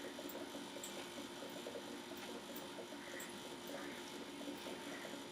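Faint room tone with a steady low hum and a few faint, scattered computer mouse clicks.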